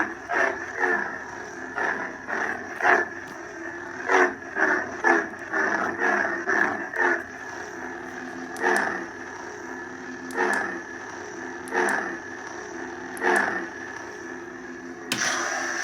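Lightsaber sound board playing a sound font through the hilt's small speaker: a steady electric blade hum with repeated clash hits, several a second at first, then about one every second and a half, and a louder burst near the end.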